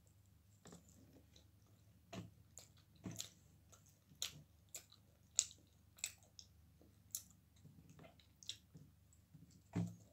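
A person chewing pizza: irregular soft crunches and mouth clicks, about one every half second.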